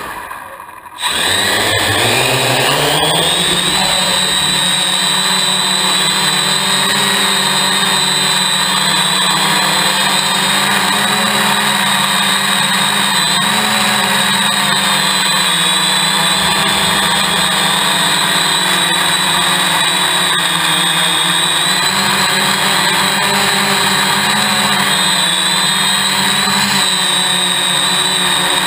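Hexacopter's electric motors and propellers heard through its own onboard camera. The motors wind down and cut out for a moment, spin back up with a rising whine about a second in, then settle into a steady high whine in flight.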